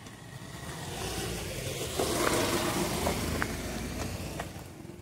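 A motor vehicle passing close by on the road: its engine and tyre noise builds up, peaks about two seconds in and fades away, with a few light clicks along the way.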